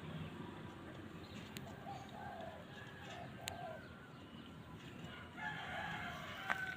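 A rooster crowing twice, one call a couple of seconds in and a longer one from about five seconds in.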